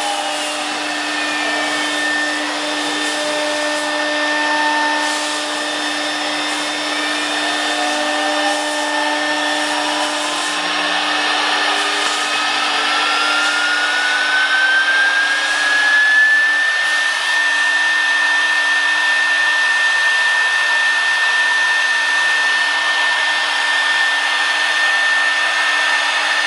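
CNC router spindle running and cutting wood: a steady high whine over a noisy cutting hiss, with motor tones gliding up and down as the axes move. One whine climbs in pitch over about ten seconds, then holds steady for the rest.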